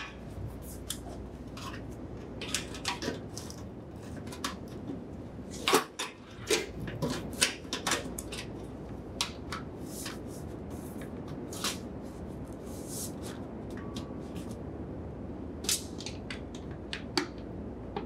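Scattered clicks and light taps of a sheet-metal access panel being handled and fitted against the back of a refrigerator, with a sharper knock about six seconds in.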